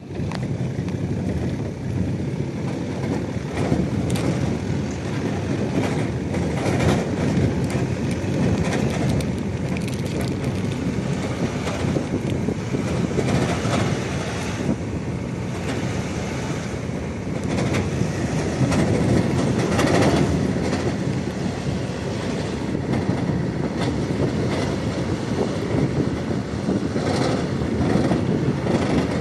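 Heavy tractor trucks pulling loaded rear-tipping dump semi-trailers drive past close by on a dirt road. There is a steady, heavy rumble of engines and tyres, with frequent clanks and knocks from the trailers.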